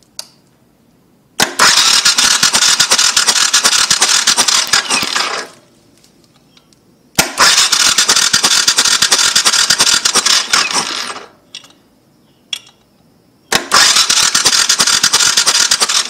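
Suzuki Savage 650 electric starter cranking the single-cylinder engine over with the spark plug out, in three bursts of about four seconds each with short pauses between. The engine is being turned over to check the plug for spark, which comes out weak.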